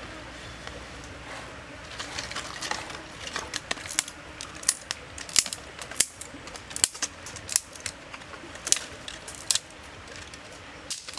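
Dry twigs snapping as they are broken by hand and piled onto glowing charcoal to build a small fire. After about two seconds, a sharp snap comes roughly every second, with brushing and rustling of sticks in between.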